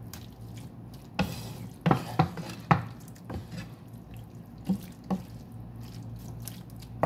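Wooden spatula stirring a thick, wet mixture of cooked meat and vegetables in sauce in a metal frying pan: wet, squelching sounds with a scattering of short knocks and scrapes as the spatula hits the pan.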